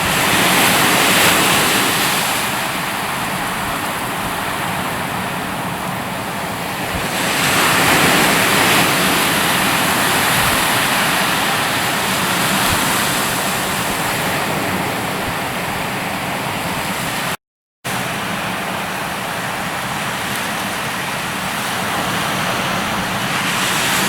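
Ocean surf washing onto the shore in slow surges, with wind buffeting the microphone. The sound cuts out completely for a moment about two thirds of the way through.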